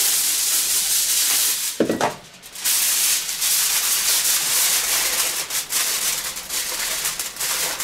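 Aluminium foil crinkling and rustling as it is crumpled and pressed down by hand over a baking tray, with a short pause about two seconds in.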